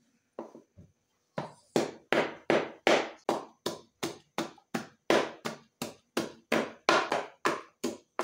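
Ceramic pestle pounding garlic and ginger in a ceramic mortar: a few light taps, then a steady pounding of about three strokes a second, crushing them to a paste.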